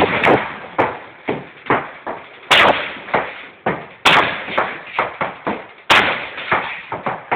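Repeated kicks against a locked door: heavy slams about every one and a half to two seconds, with smaller knocks and rattles between them.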